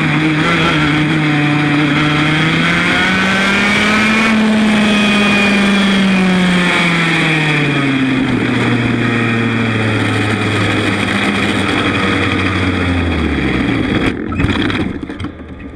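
100 cc Formula A kart's two-stroke engine running, its pitch rising for about four seconds and then falling steadily as it slows, fading out near the end.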